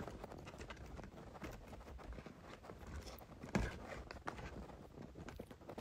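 Quiet room with faint rustling and handling noise on a phone microphone, and one soft knock about three and a half seconds in.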